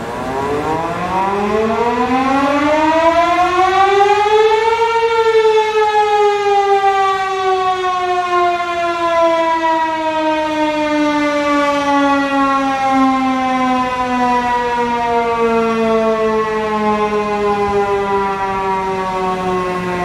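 H&B Denver Quadruplex electromechanical tornado siren sounding a short blast, super loud: its pitch rises for about five seconds as the rotor spins up, then glides slowly down as it coasts, cut off short of full speed.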